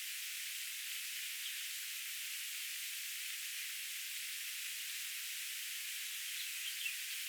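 Steady, even hiss with no low end, with a few faint, short high chirps about a second and a half in and again near the end.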